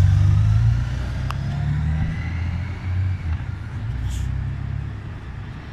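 Honda Gold Wing flat-six motorcycle engine pulling away under light throttle, its drone fading steadily as the bike moves off, with a short click about a second in.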